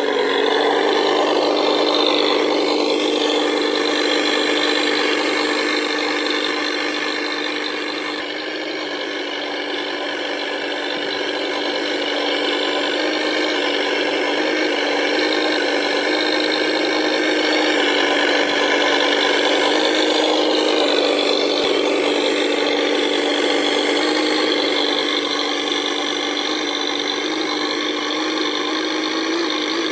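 Simulated V8 engine sound from an RC sound unit for a 1:12 Tamiya M1025 Humvee model, running at a steady pitch.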